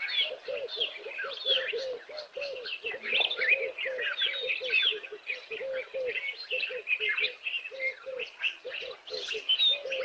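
Several wild birds chirping and whistling, many short high calls overlapping, over a low short note repeated about three times a second.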